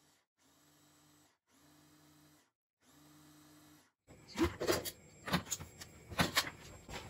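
Philips electric mini chopper grinding roasted peanuts in three short pulses, each about a second long with a steady motor hum. About four seconds in, hard plastic knocks and clicks follow as the motor unit and lid come off the chopper bowl.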